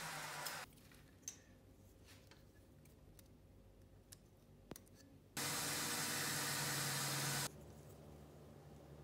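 A power tool's motor running in short, steady stretches: one stops about half a second in, another runs for about two seconds from just past the middle, each starting and stopping abruptly. Light clicks and taps from handwork come in between.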